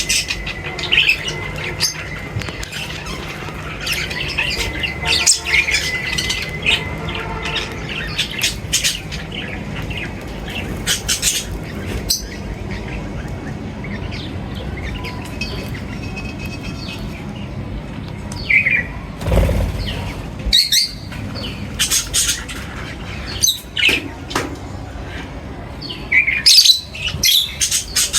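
Birds chirping and squawking in many short, sharp calls, with a thin steady high whistle during the first six seconds and a brief low thump about 19 seconds in.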